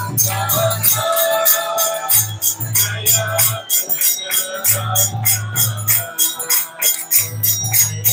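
Harmonium playing a devotional kirtan melody over a fast, steady beat of hand claps, about four strokes a second.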